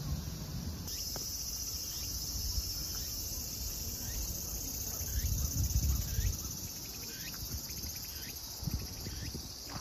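A steady, high-pitched chorus of calling insects, which becomes louder about a second in, with a few short falling chirps over it.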